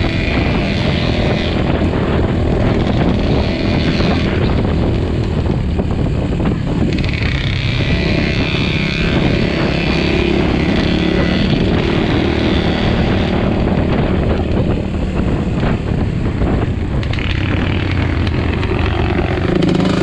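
Enduro motorcycle engine running as the bike rides along a dirt forest track, heard from on board. The engine note changes about a third of the way in and again near the end as the throttle varies.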